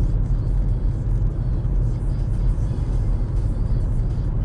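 Steady low rumble of a car driving on a highway, heard from inside the cabin: engine and tyre road noise.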